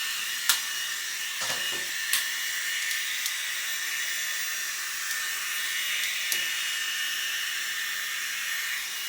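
Hot-air hair styling tool running: a steady high whine with a hiss of blowing air, and a few light clicks.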